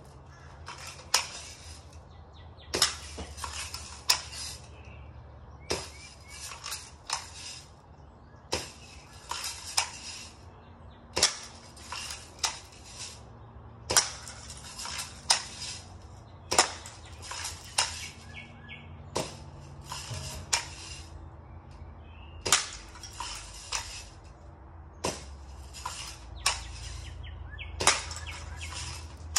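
Daisy Red Ryder lever-action BB gun being cocked and fired again and again in quick succession: sharp metallic clacks and pops about once a second, often two or three close together.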